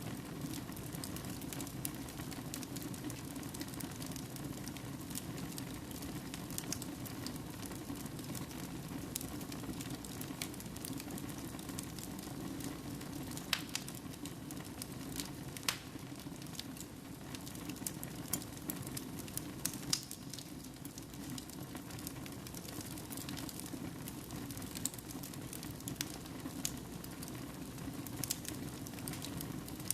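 Wood fire burning in a fireplace: a steady low rumble of flames with scattered sharp crackles and pops from the burning logs, a few louder pops around the middle.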